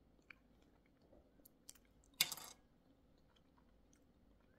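Brittle shell of a sweet tamarind pod cracking and crumbling as it is peeled by hand: scattered small crackles, and one louder crunchy crack a little over two seconds in.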